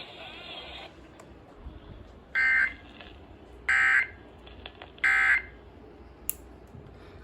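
Three short bursts of Emergency Alert System end-of-message data tones (SAME), each a buzzy digital squawk about a third of a second long, about 1.3 s apart. They mark the end of the severe thunderstorm warning broadcast. Before them, in the first second, the broadcast's static hiss dies away.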